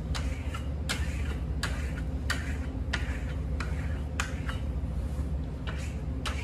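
Hand plaster trowel stroking green Venetian plaster across a sample board: each stroke a sharp click followed by a short scrape, about one and a half a second. The strokes are the tight finishing pass that smooths and compacts the plaster. A steady low hum runs underneath.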